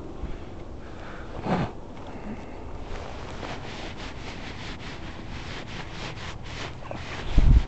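Footsteps through dry grass and dirt, with rustling of dead stems underfoot. Wind buffets the microphone twice, briefly about a second and a half in and more loudly near the end.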